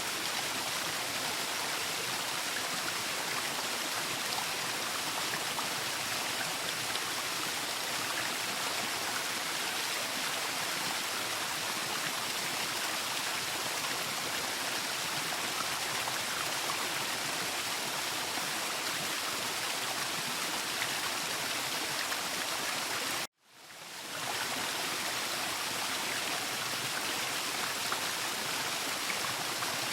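Waterfall, a steady rush of falling water. About two-thirds of the way through it cuts out abruptly for a moment and then fades back in, like a splice in a looped recording.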